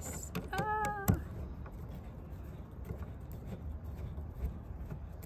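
Manual screwdriver driving a screw into a plastic RV compartment lock handle: one sharp click about a second in, then faint scattered ticks over a steady low rumble. A short hum from her voice comes just before the click.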